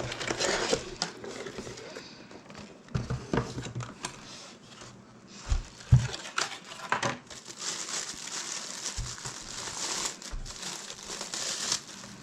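Plastic packaging crinkling and rustling while a small soundbar is unwrapped by hand, with scattered clicks and a few soft thumps as it is handled.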